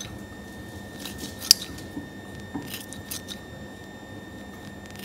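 Raw peeled shrimp being cut into pieces with a blade: a handful of short, sharp cutting clicks, the loudest about a second and a half in, with a few more around the three-second mark.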